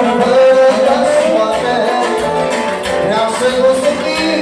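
Live band music: a male singer on a microphone, amplified through PA speakers, over an accompaniment of accordion, electronic keyboard and saxophone.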